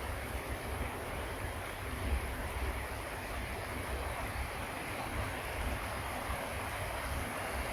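Waterfall: a steady rush of falling water, with a low rumble underneath.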